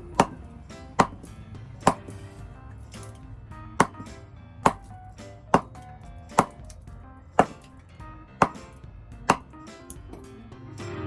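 Hammer blows striking an Ebonite Cyclone bowling ball to break it apart: about ten sharp whacks, roughly one a second, with a slightly longer pause near the third second.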